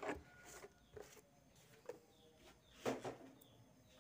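A few soft knocks and handling noises from a plastic food container being moved and set down, the strongest about three seconds in, with faint chicken calls in the background.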